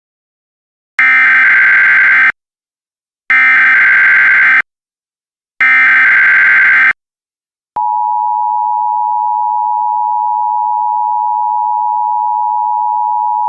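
Emergency Alert System (EAS) header: three bursts of SAME digital data tones, each a little over a second long. Then, a little past halfway, the steady two-tone EAS attention signal begins and holds.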